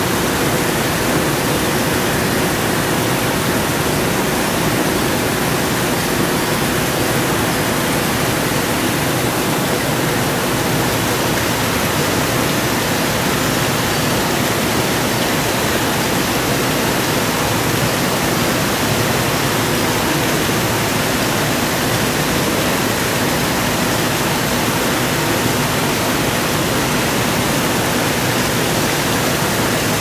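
Steady, unbroken rushing noise spread evenly from low to high pitches, with no changes or separate events.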